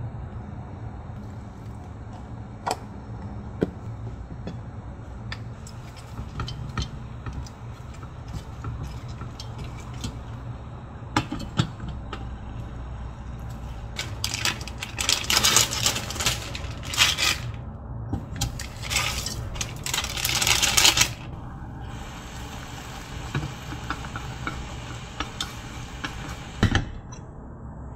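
Home cooking sounds: a wooden spatula scraping and stirring noodles in a nonstick pan, and a knife cutting cabbage on a wooden board, with scattered knocks and clicks over a steady low hum. About halfway through come several seconds of loud hissing in two stretches.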